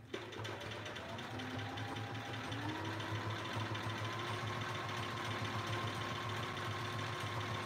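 Home sewing machine stitching at speed during free-motion quilting with a darning foot. The motor whine rises in pitch over the first few seconds as the machine speeds up, then holds steady over a fast, even needle rhythm.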